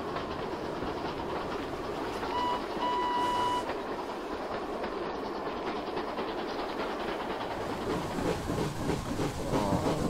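Steam train running on the rails with a steady rumble, and its whistle blowing twice, a short toot then a longer one, about two and a half seconds in.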